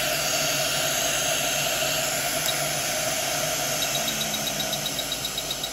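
Quick 881D hot air rework station's handpiece blowing a steady hiss of air that slowly gets quieter as the air flow is turned down, with a rapid run of faint high ticks in the second half while the air-down button is held. Its heating element has failed, so the air comes out unheated.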